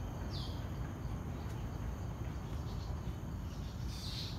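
Forest ambience: a steady low rumble with short high chirps, one about a third of a second in and another near the end.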